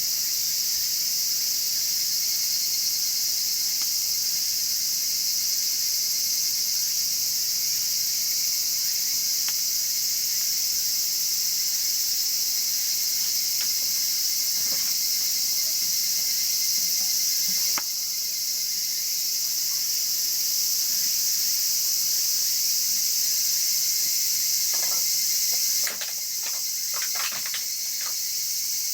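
Steady high-pitched chirring of crickets, with a wood fire in a chiminea crackling now and then and a quick cluster of pops near the end.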